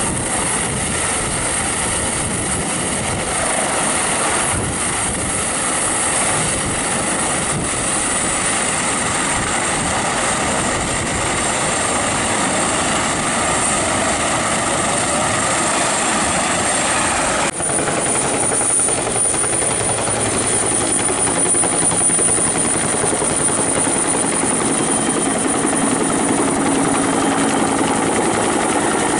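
Bell 212-type helicopter's turbines and two-bladed rotor running steadily, a high turbine whine over the rotor noise. An abrupt break a little past halfway, after which the whine is steadier.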